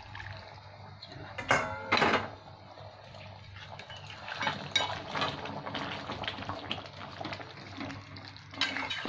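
Chicken curry gravy simmering in a metal kadai, a light bubbling and crackle. A spatula stirs and knocks against the pan, with two louder clatters about one and a half to two seconds in and another near the end.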